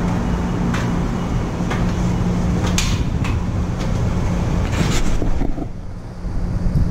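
Steady low hum of running machinery over outdoor street noise, with several sharp knocks scattered through it; the whole gets quieter about five and a half seconds in.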